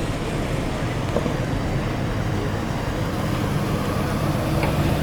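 A car engine idling steadily, its low hum growing stronger about three seconds in.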